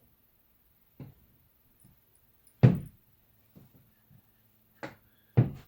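Several separate knocks from a plastic handheld controller case and small tools being handled. The loudest knock comes about two and a half seconds in, with two more near the end.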